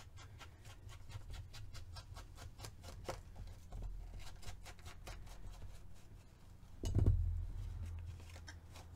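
Quick scratchy dabs and rubs on paper as an ink pad is worked along a page's edges, with a dull thump about seven seconds in.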